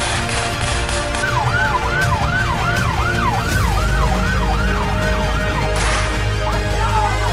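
A siren yelping, a quickly repeated rising wail about two or three times a second that fades out after a few seconds, laid over background music with a steady low drone. A loud hit comes near the end.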